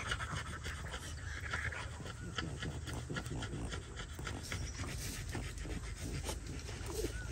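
Scissors snipping through a sheep's thick, matted wool, a string of short irregular clicks, over steady rapid panting breaths.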